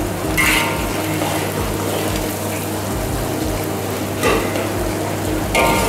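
Sliced shallots, chillies and pounded spice paste sizzling in a steel wok while a metal ladle stirs and scrapes them, with a few louder scrapes of the ladle against the wok. This is the spice base being fried until fully cooked and fragrant, with a steady low hum underneath.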